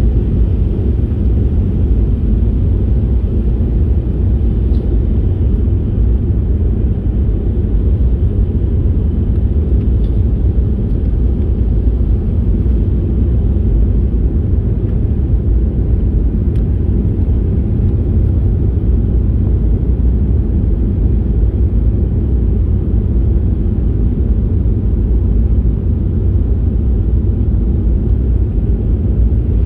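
Airliner cabin noise: a steady, deep rumble of jet engines and airflow heard from inside the passenger cabin during the approach.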